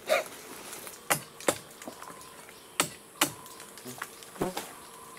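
About six sharp cracks and snaps as rotten wood and bark are pulled and broken away by hand from a hollow tree trunk holding a stingless bee nest, over a faint steady insect hum.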